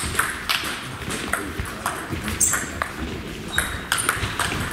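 Table tennis rally: the celluloid/plastic ball clicking off the bats and bouncing on the table in a quick back-and-forth, with a few short high squeaks of shoes on the sports-hall floor.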